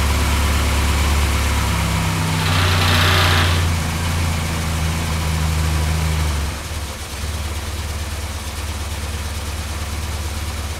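1970 Morris Minor's 1098cc A-series four-cylinder engine idling on the choke just after a cold start. There is a brief hiss and a small rise about three seconds in. The idle then drops to a lower, quieter note about six and a half seconds in as the choke is pushed in.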